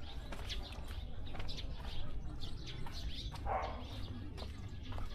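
Birds chirping in short, repeated calls over a steady low rumble, with one louder, lower call about three and a half seconds in.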